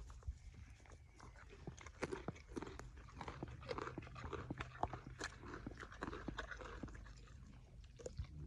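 Horse chewing carrots: irregular crisp crunches as it bites and grinds them.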